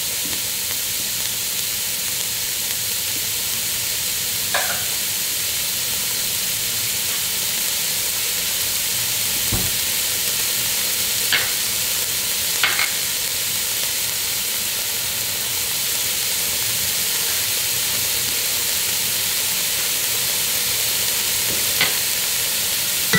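Sofrito of onion, green bell pepper and garlic sizzling steadily in oil in a pan, with a few sharp clicks and one dull knock from the cook's spoon as it is stirred.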